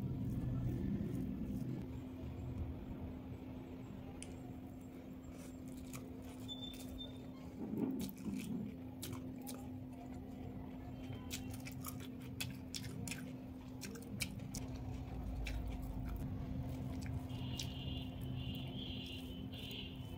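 Eating sounds: soft chewing and handling of food, with scattered light clicks through the middle, over a steady low hum.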